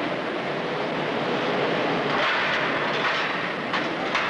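Steady mechanical din of steel-mill machinery in a coil-handling bay, with a couple of sharp metallic clicks near the end.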